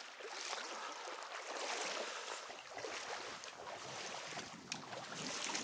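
Shallow stream water running and rippling, a steady soft rushing hiss with a few faint splashes or ticks.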